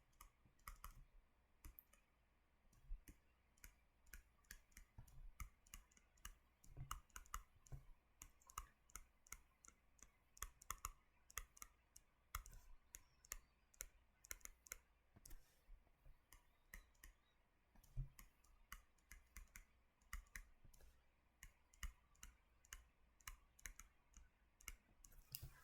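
Faint, irregular clicks and taps of a stylus on a tablet screen during writing, several a second with short pauses.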